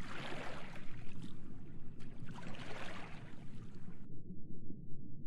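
Watery rushing sound effect that swells twice and cuts off about four seconds in, over a steady low underwater rumble.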